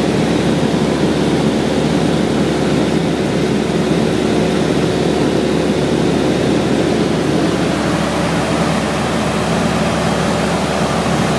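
Cessna 172's piston engine and propeller running steadily in cruise flight, heard inside the cockpit, with a steady even drone and wind rush.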